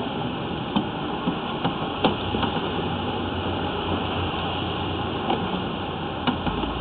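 Steady rumbling noise from a sewer inspection camera being pushed along the pipe, with a handful of sharp knocks as the camera head bumps and scrapes the pipe wall.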